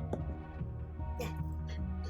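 Background music with sustained bass notes and stacked steady tones, with a few brief noisy sounds a little over a second in.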